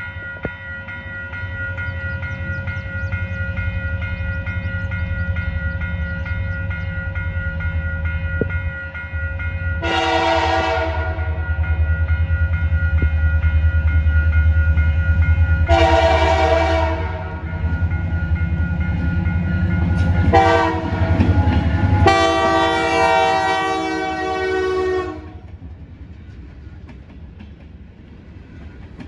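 Canadian Pacific diesel freight locomotive approaching with its engine rumbling louder, sounding its horn in the grade-crossing pattern: two long blasts, a short one, then a final long blast of about three seconds. After the horn stops, the freight cars roll past with a clatter of wheels on the rails.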